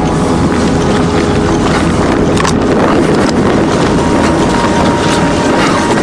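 A vehicle engine running steadily close by, with wind buffeting the microphone and a couple of brief knocks a few seconds in.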